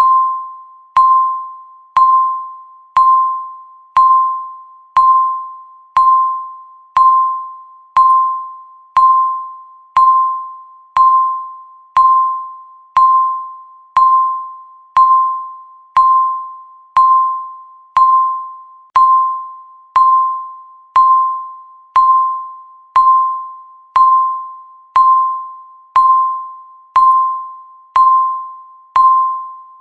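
Countdown timer's electronic beep marking each second: a single steady-pitched ringing tone struck once a second, each fading out before the next.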